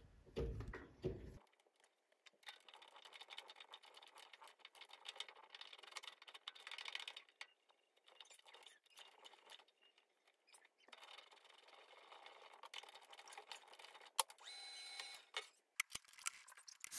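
Faint, irregular scraping and clicking of a 10 mm threading die in a tailstock die holder cutting a thread on a mini lathe whose chuck is turned by hand, with short pauses between turns. The thread is cut by hand because the lathe's motor lacks the power to drive a 10 mm die.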